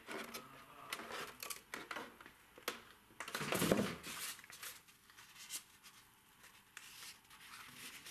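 Polystyrene foam packaging being handled: rubbing and scraping, with scattered light clicks and knocks, the loudest scrape about three and a half seconds in.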